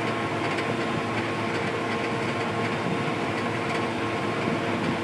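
Combine harvester running while unloading grain on the move, its unloading auger engaged: a steady mechanical running noise with a constant hum, heard from inside the cab.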